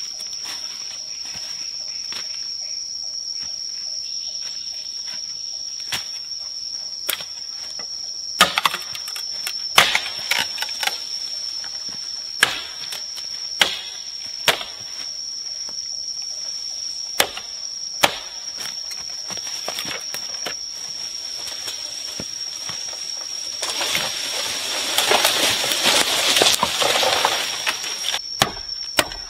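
A steady high-pitched insect drone with sharp chopping knocks from a blade cutting undergrowth, every second or two from about eight seconds in, and a few seconds of louder rustling of brush near the end.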